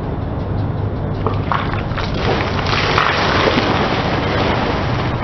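Car tyre rolling over plastic jelly-drink packs, crushing and bursting them so the jelly squirts out, over the steady low hum of the car's engine. The crushing builds about a second in and is loudest between two and three and a half seconds in.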